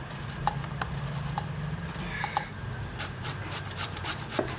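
Peeled bottle gourd rasped on a metal box grater, a few scattered scrapes at first, then quick, even grating strokes about five a second from about three seconds in.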